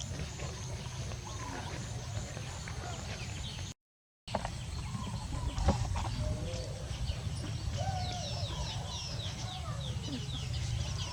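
Birds calling: short low calls, then a quick run of high chirps in the second half, over a steady low rumble. The sound cuts out completely for about half a second around four seconds in.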